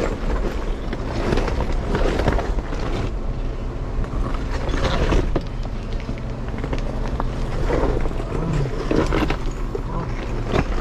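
Jeep Wrangler Rubicon's 3.6-litre V6 running low and steady while crawling down a rocky trail. The tyres roll over loose rock, with irregular knocks and rattles throughout.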